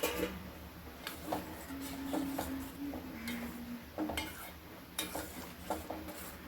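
Kitchen utensils and dishes clinking and knocking: a series of irregular sharp clicks, as of a spoon or ladle against pots and bowls while food is prepared.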